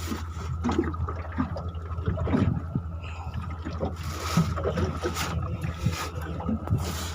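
Water trickling and sloshing with scattered small splashes and knocks on a small boat, over a steady low hum.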